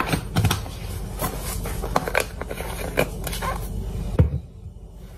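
Garlic salt shaker being shaken and tapped over a salmon fillet: irregular light taps and rattles, with a louder knock about four seconds in.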